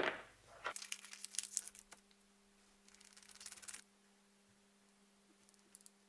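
Handling noise at a workbench: a sudden knock at the start, then two spells of scratchy rubbing and crinkling as knife-handle parts and paper are handled on the cutting mat, over a steady low electrical hum.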